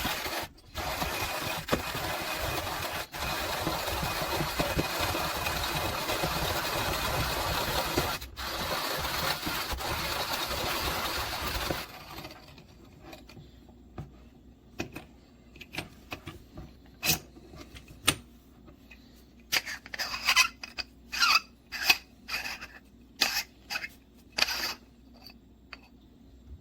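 Timemore Chestnut C3 manual burr grinder crushing coffee beans, a steady grinding noise with a couple of brief breaks, which stops about twelve seconds in. After it come a series of short clicks and knocks as the grinder is handled.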